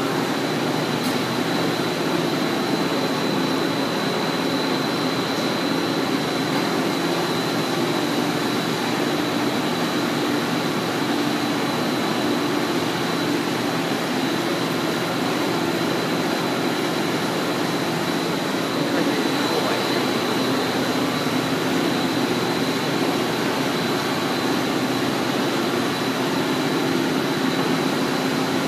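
Steady noise of process machinery running in a chemical plant workshop, with a constant high whine over a low hum.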